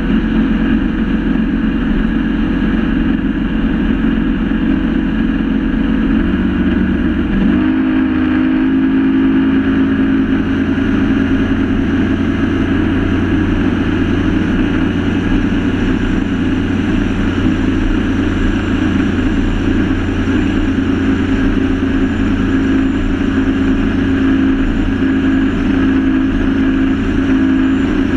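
Speedboat engines running at high speed over a steady rush of wind and water. About seven seconds in, the engine note steps up in pitch as the revs rise, then holds steady.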